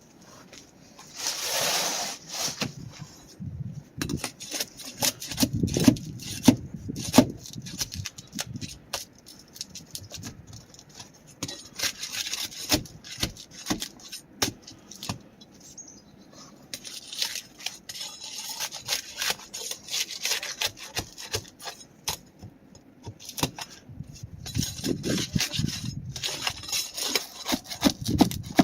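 Irregular clicks, knocks and scraping of hand work on asphalt roof shingles, with a longer scrape about two seconds in and a few dull thuds.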